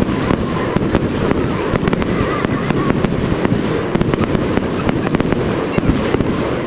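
Fireworks display: a dense, continuous run of sharp crackling cracks over a steady low rumble of bursts.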